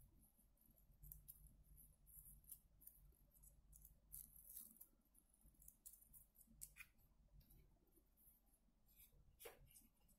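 Near silence, with faint scattered rustles and light ticks of paper: quilling strips being handled and their curls eased open by fingers.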